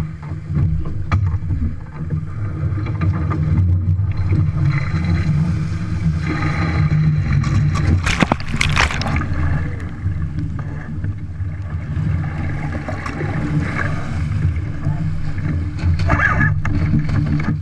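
Wind buffeting the microphone over water rushing along a BW8 yacht's hull, with a loud surge of spray about eight seconds in and another near the end as the boat is knocked over in a spinnaker wipeout and water pours over the side.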